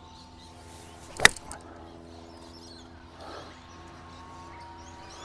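A 6-iron striking a golf ball on a full swing: a short swish, then one sharp, crisp click of the clubface on the ball about a second in, a solid strike.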